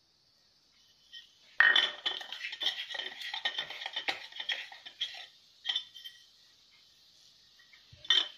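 Cumin seeds crackling and spluttering in hot oil in an iron kadhai: a dense run of pops starts suddenly about a second and a half in and dies down after a few seconds. A couple of separate sharp clinks come later.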